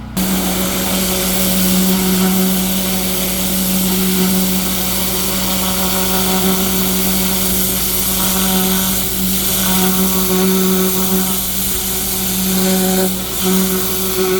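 A 6750 psi pressure washer blasting its jet of water against a block wall. The water makes a loud, steady hiss over the machine's steady hum. The spray cuts in suddenly at the start and drops out briefly for a moment near the end.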